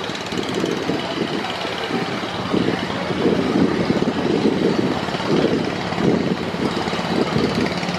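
Diesel engine of a river passenger launch running steadily, a continuous low, rough drone.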